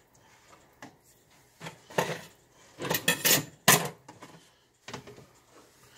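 A big spoon stirring shredded cheese into a thick soup in a pot, knocking and scraping against the pot several times. The loudest clatter comes about three seconds in.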